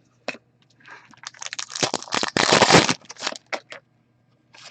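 Crinkling and rustling from hands handling trading cards and their packaging, loudest for about a second and a half in the middle, with scattered clicks before and after.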